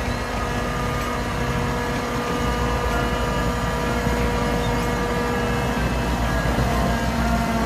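Heavy eight-wheel tipper truck's diesel engine running steadily, its body raised and tipping out a load of earth.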